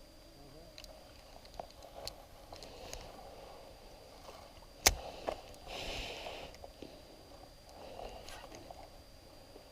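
Faint knocks and clicks of handling in a small boat, with one sharp click about five seconds in and soft shuffling noise after it.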